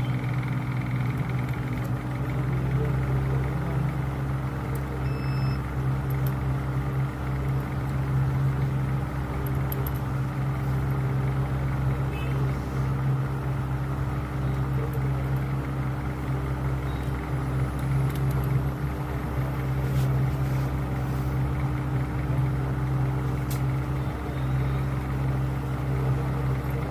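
A steady low hum with a rumbling haze beneath it, unchanging throughout, with a couple of faint light clicks.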